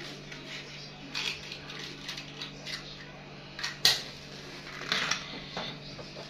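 A safety match being handled and struck on the side of a matchbox: a few short dry scratches, then one sharp, louder strike a little before four seconds in as the match flares alight.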